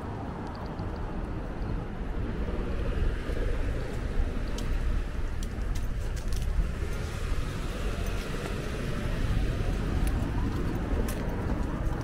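Wind buffeting the microphone: a low, gusty rumble that swells and eases irregularly, with a few faint clicks and jingles over it.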